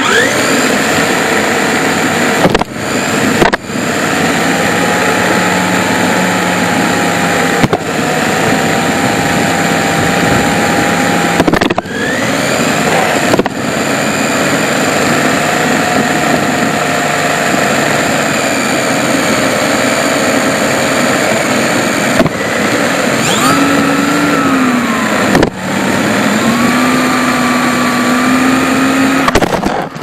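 Small electric motor of a WLtoys K989 RC car whining as it drives, its pitch rising and falling with speed, over a steady rush of drivetrain and tyre noise on concrete, picked up by a camera mounted on the car. The sound drops out briefly several times.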